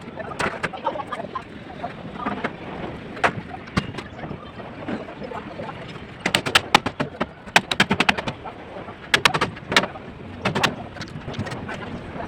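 Hammer blows on column formwork being set up: a few scattered knocks, then quick runs of sharp strikes about halfway through and again near the end.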